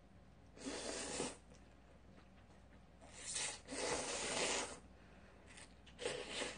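Slurping kalguksu noodles: four loud, breathy sucking bursts, two of them back to back in the middle.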